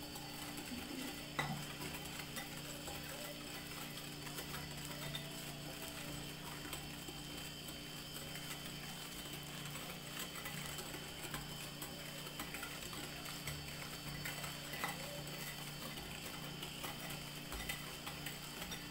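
Wire whisk beating a thick, whipped mixture of instant coffee, sugar and hot water in a bowl by hand: continual soft scraping with small clicks of the wires against the bowl, over a steady low hum.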